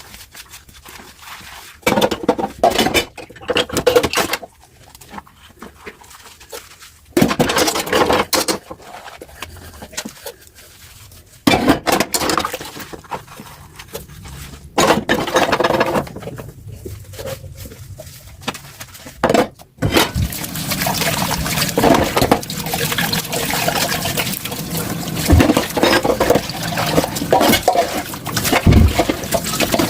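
Water from a kitchen tap running over dishes in a sink in several short spells, then running steadily from about two-thirds of the way in, with a few knocks of dishes against the sink.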